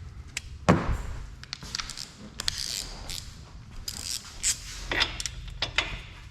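Hand tools clicking, clinking and knocking against metal parts of the car's rear suspension, with one sharp knock under a second in and a scattering of lighter clicks and brief scrapes after it.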